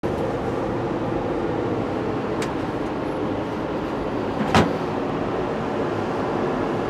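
Steady running noise of a Via Rail dome car moving along the track, heard from inside the dome, with a faint click a little after two seconds and one sharp knock about two-thirds of the way through.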